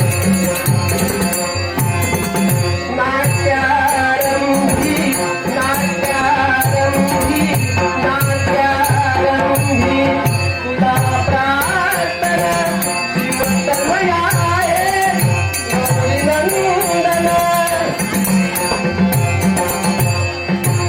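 Marathi devotional hymn to Ganesha (Ganesh stavan) sung by a male voice over drum strokes and a steady cymbal rhythm, in the style of Konkan Dashavatar theatre.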